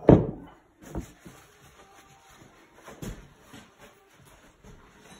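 Brake caliper knocking on a wooden workbench as it is handled and set down: a heavy thump at the start, then two lighter knocks about a second in and about three seconds in, with faint rustling between.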